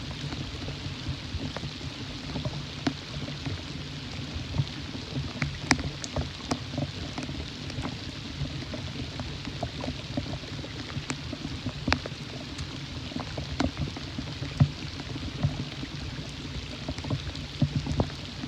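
Rain falling steadily, with irregular sharp ticks of single drops striking close by.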